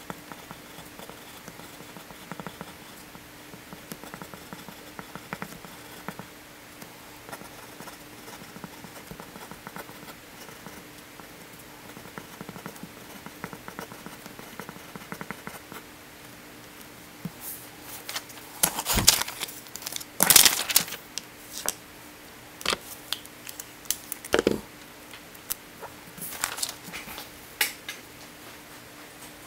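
Graphite pencil writing on paper, a faint scratching. From a little past halfway, louder rustles and clicks of paper sheets being handled and moved. A faint steady hum underneath.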